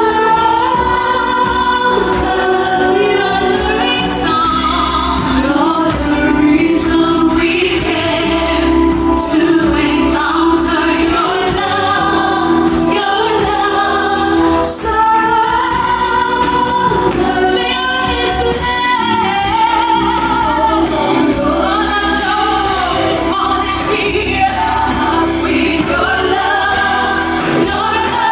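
A choir and congregation singing a gospel worship song with instrumental backing.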